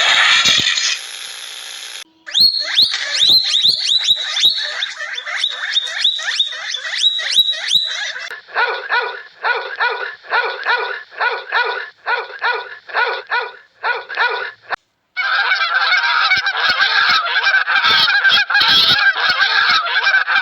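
Animal calls in several short bursts: first a fast run of short repeated calls, then a slower steady series of about two calls a second, then from about halfway through a dense, overlapping chorus of many calls.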